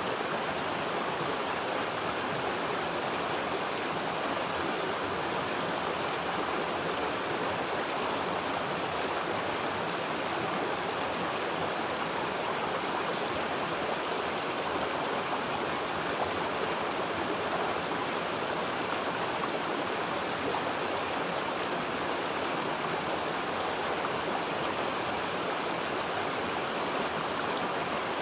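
Running water rushing steadily and unbroken, with no pauses or distinct splashes.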